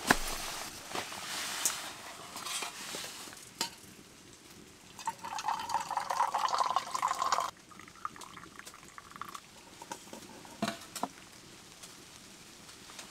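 A hot drink poured from a small titanium teapot into a metal mug: a steady pouring trickle for about two and a half seconds around the middle that stops suddenly, then a brief weaker pour. Light knocks and clinks of the metal cookware being handled come near the start and again later.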